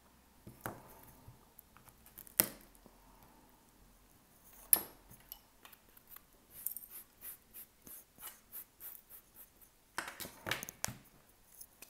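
Hard tool chipping and cracking at an iPhone 13's thick back glass to break it loose: a few sharp separate cracks, the loudest about five seconds in, then a run of small clicks about three a second and a cluster of cracks near the end.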